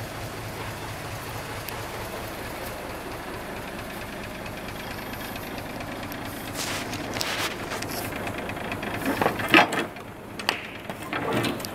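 Mitsubishi Fighter truck's 6D16 turbo diesel engine idling steadily. In the second half, sharp clicks and rustles come in over it, the loudest near the end.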